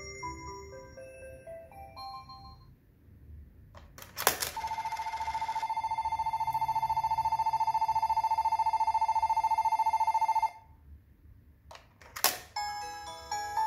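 Electronic sounds from the speaker of a JR Yamanote Line train coin bank: a short chiming tune fades out, a sharp click follows, then a loud electronic bell trills steadily for about six seconds and stops abruptly. Near the end, two clacks as a coin is dropped into the roof slot, and a new chiming tune begins.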